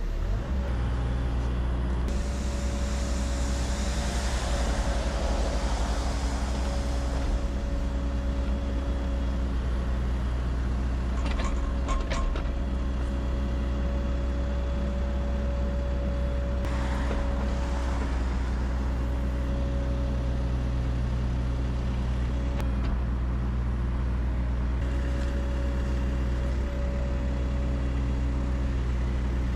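Hydraulic excavator's diesel engine running steadily under work, with a steady whine. A rushing noise swells about two seconds in and lasts several seconds, a few sharp clicks come near the middle, and a shorter rush follows a few seconds later.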